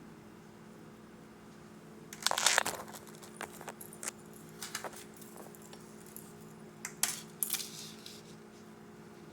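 Thin metal chain necklace clinking and rattling in the hands as it is untangled: irregular clusters of small metallic clicks, loudest about two seconds in and again near seven seconds.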